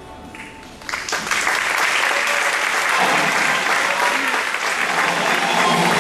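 Theatre audience applauding, breaking out suddenly about a second in and holding steady.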